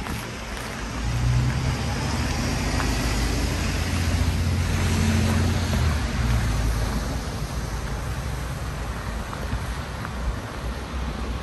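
A motor vehicle passing on a street: a low engine rumble with tyre noise that swells about a second in and fades away after about seven seconds.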